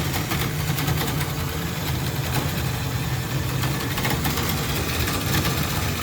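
A motor running with a steady low hum, with faint clicks over it.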